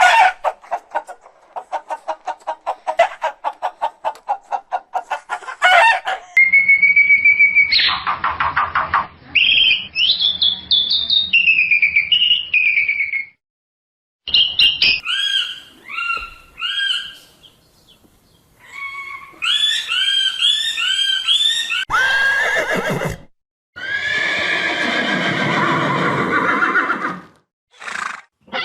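A string of different animal calls cut one after another, each lasting a few seconds, with brief silent gaps between some of them: a rapid pulsing call first, then several pitched, warbling calls, and a long call near the end.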